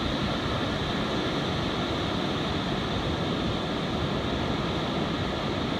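Ocean surf breaking and washing up a sand beach, a steady rushing noise with no distinct strokes.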